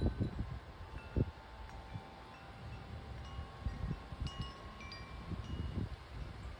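Wind chimes ringing irregularly in gusty storm wind, several notes of different pitch struck and fading, with wind buffeting the microphone.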